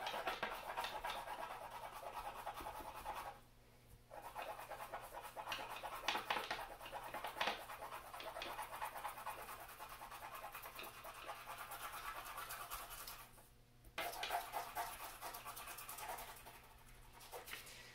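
Stockmar beeswax stick crayon scratching across paper in quick back-and-forth colouring strokes, pausing briefly about three seconds in and again about three-quarters of the way through.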